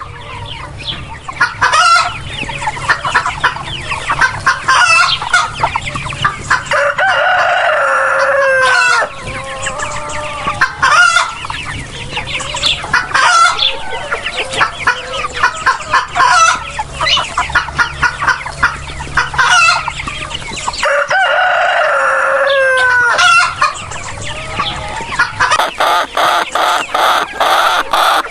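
Chickens clucking busily throughout, with a rooster crowing twice: one long crow about seven seconds in and another a little after twenty seconds, each falling in pitch at the end.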